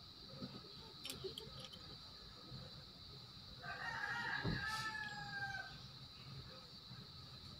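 A rooster crowing once: a single call of about two seconds in the middle, falling slightly at its end, over a steady faint high-pitched hum.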